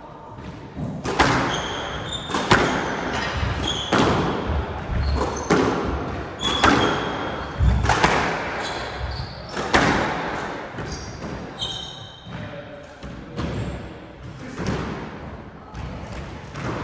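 Squash rally: the rubber ball hitting the rackets and the court walls roughly once a second, each hit ringing in the hall. Sneaker soles squeak sharply on the wooden floor between shots.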